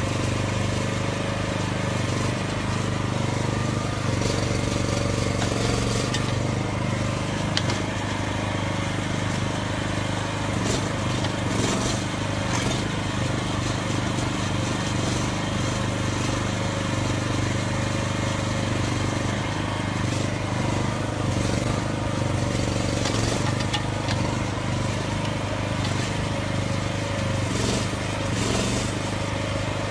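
Mini excavator's small engine running steadily while its bucket digs into soil.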